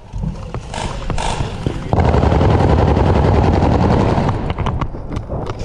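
Airsoft gunfire: scattered shots, then a loud sustained full-auto burst of about two seconds starting about two seconds in, followed by more sharp shots near the end.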